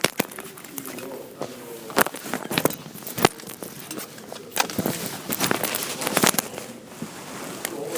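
Irregular crackling and sharp clicks, with a faint voice in the background.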